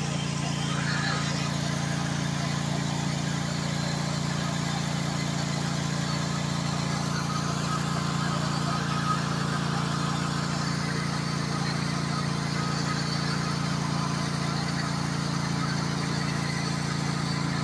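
Engine of a rebuilt Toro TimeCutter zero-turn mower idling steadily, an even low hum that holds the same speed throughout.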